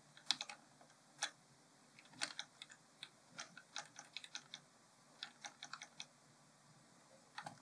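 Faint, irregular clicking of computer keys, about twenty short clicks in uneven runs.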